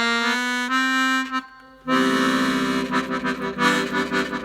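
Hohner Student 72 piano accordion, freshly repaired, playing a rising run of single treble notes that ends on a held note. After a short pause, a fuller sustained sound with several pitches at once sets in, with a fast pulsing.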